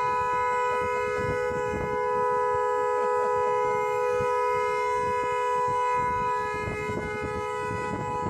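Car horn of an SUV blaring steadily without a break, held down by a French bulldog leaning on the steering wheel; two close tones sound together.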